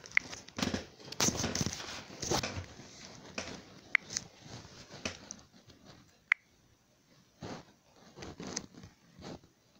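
Faint scattered rustles and light clicks of a phone being handled close to its microphone, busier in the first few seconds and sparser after about six seconds.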